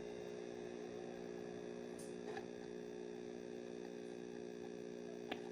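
Steady low electrical hum, with a couple of faint clicks, one about two seconds in and one near the end.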